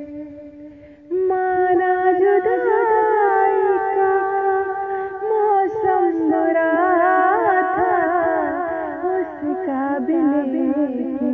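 A woman singing a Hindi song. A held note fades out, then about a second in she takes up long sustained notes with quick wavering ornaments, stepping down in pitch towards the end.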